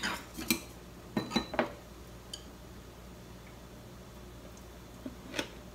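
Chopsticks tapping and clinking lightly against a small ceramic dish as food is picked up. There are a few scattered clinks, mostly in the first two seconds, one with a brief ring, and one more near the end.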